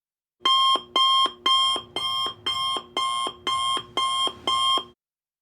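An electronic alarm tone sounding nine times, about two beeps a second, then cutting off abruptly.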